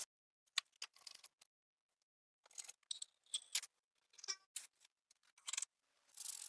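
A string of short clicks, taps and brief scrapes from hands working with small parts or tools, broken up by stretches of dead silence.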